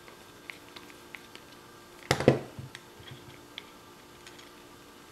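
Faint clicks of a screwdriver backing a wood screw out of a Winchester 1873's butt plate. About two seconds in comes one loud sharp knock, followed by a few lighter clicks.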